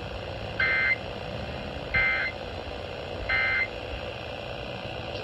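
Emergency Alert System end-of-message signal: three short bursts of two-tone digital data squawk, about 1.3 seconds apart, over a steady hiss of radio noise. It marks the close of the alert.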